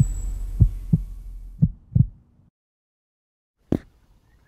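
Intro sound effect: deep heartbeat-like thumps in pairs under a fading boom, stopping about halfway through. After a short silence, a single sharp crack sounds near the end.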